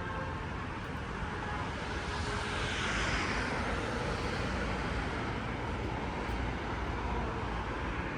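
A vehicle passes close by over a steady bed of city traffic noise; its sound swells about two seconds in and falls in pitch as it goes past.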